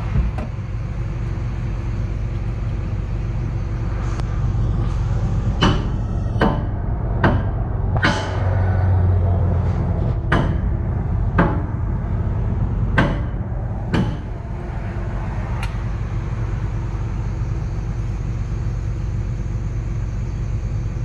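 Excavator's diesel engine running steadily, heard from inside the cab. Midway, about nine sharp metal knocks ring out, roughly one a second, and the engine note swells briefly about eight seconds in.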